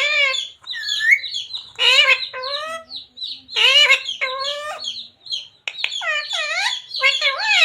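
Pet talking parrot chattering: a string of short, high-pitched squawky calls with wavering pitch, coming in quick runs.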